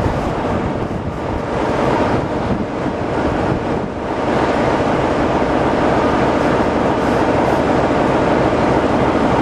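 Steady loud rushing hiss of steam venting from steam locomotive 70013 Oliver Cromwell, a BR Standard 'Britannia' Pacific, standing at the head of its train; it grows a little louder about four seconds in.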